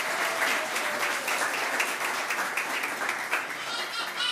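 Audience applauding, many hands clapping steadily. A voice rises over the clapping near the end.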